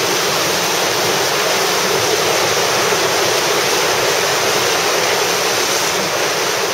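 Whitewater river rapid rushing steadily.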